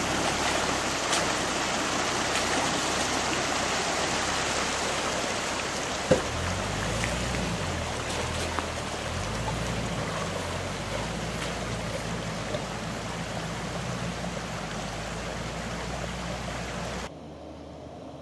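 Creek water rushing over rocks as a four-wheel-drive wagon crawls through the crossing. Its engine runs low beneath the water from about six seconds in, with a single sharp knock there. The water sound cuts off abruptly near the end.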